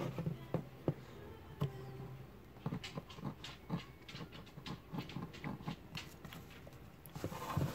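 Hand work on a linoleum carving block: a small carving tool and fingers make irregular small clicks and scrapes, several a second, after a single louder knock with a short low hum at the start.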